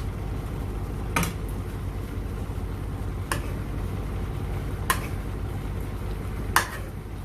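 Kitchen cookware sounds: four sharp clicks about a second and a half apart, like a utensil or lid knocking on a pot, over a steady low hum.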